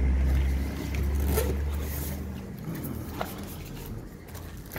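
A low rumble, strongest in the first couple of seconds, with a few short crinkles of plastic packaging as the boxed speaker's plastic wrap and the bagged quick start guide are handled.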